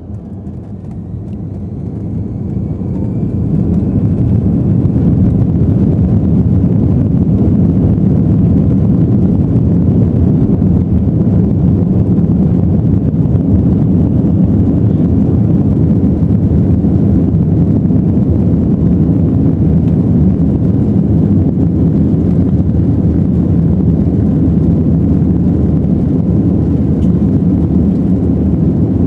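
Jet airliner's engines spooling up to takeoff power, heard inside the cabin: the sound swells over the first few seconds with a faint rising whine. It then holds as a loud, steady low rush through the takeoff roll.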